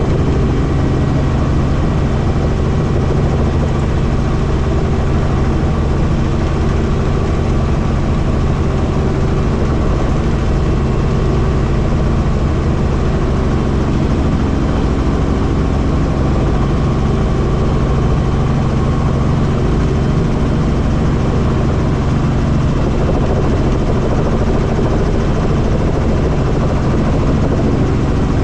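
Helicopter in flight: steady rotor and engine noise with a constant low hum that does not change.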